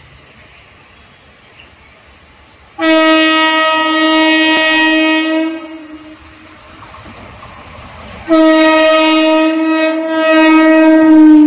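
MEMU electric train's horn sounding two long, loud blasts as it approaches, the second falling slightly in pitch near the end as the train draws level.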